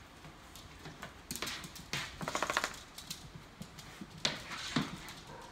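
A dog's claws tapping and skittering on a hard floor as it gets up and moves about: a quick run of clicks about two seconds in, then a couple of sharper knocks.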